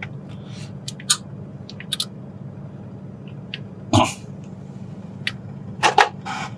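Scattered clicks and light knocks of a phone and its USB charging cable being handled and the plug pushed into the phone, with a louder thump about four seconds in and two more clicks near the end, over a steady low hum in a car cabin.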